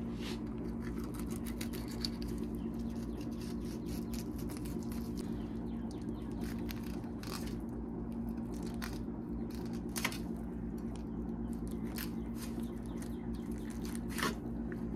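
Fillet knife cutting a perch on a plastic cutting board: scattered small clicks and crackles as the blade works through skin, scales and rib bones. A steady low hum runs underneath.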